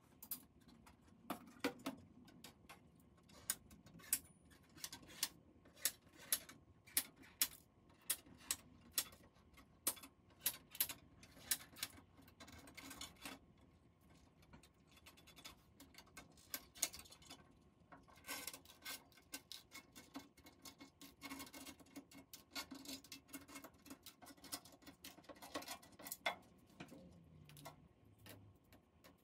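Sharp clicks and light taps as the fluorescent backlight tubes of a 30-inch Apple Cinema Display are unclipped from their holders and lifted out of the metal backlight tray. The clicks are irregular, about one or two a second at first, then come thicker in the second half.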